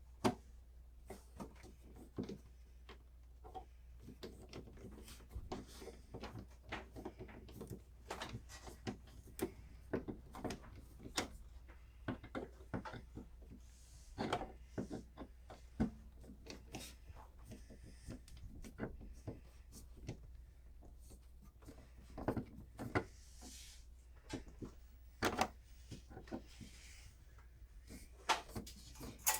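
Irregular clicks, scrapes and small knocks of a screwdriver working on an old wall receptacle's mounting screws, and of the receptacle being handled and worked loose in its electrical box.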